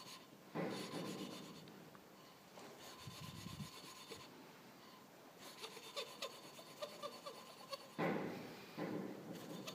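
Valve being lapped into its seat in a Volvo Penta MD2010 diesel cylinder head with fine grinding paste, the lapping stick twisted back and forth between the palms. It makes a gritty, slightly high-pitched grinding rasp in about four bouts with short pauses, a new valve bedding in against the seat.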